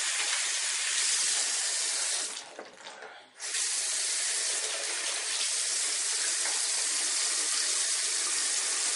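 Bathroom sink tap running steadily into the basin. It drops out briefly about two and a half seconds in, then runs on.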